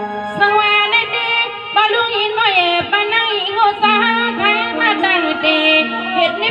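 A woman singing a Shan song into a microphone, her voice coming in about half a second in with wavering, ornamented phrases over steady held accompaniment notes.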